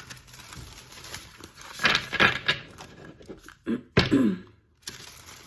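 A tarot deck being shuffled by hand: rustling riffles of card stock around two seconds in, then a sharp thunk of the cards about four seconds in, followed by a short vocal sound.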